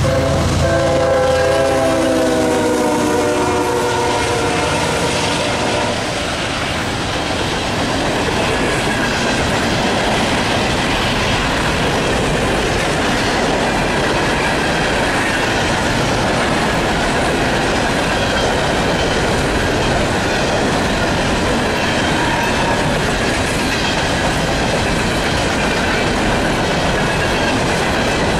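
Diesel freight train horn ending its blast with a slight drop in pitch as the lead locomotives pass, fading out about four seconds in. Then a long string of steel hopper cars rolls by with steady wheel clatter over the rail joints.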